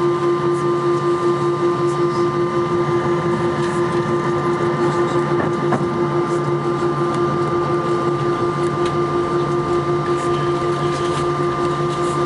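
Airbus A321's engines idling during taxi, heard inside the cabin: a steady hum with a low tone that throbs several times a second.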